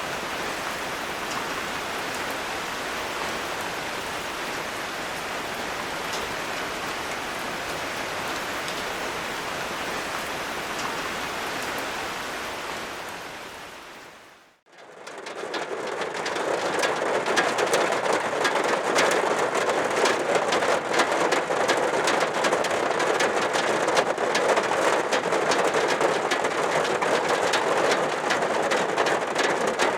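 Heavy typhoon rain: a steady hiss that fades out about halfway through, then comes back louder as a dense patter of individual drops striking a surface.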